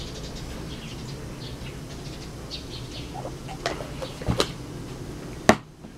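Light plastic clicks and knocks from a plastic toy cup's lid and straw being handled, with a sharp click near the end after which the sound briefly drops out. Faint bird chirps are heard in the background.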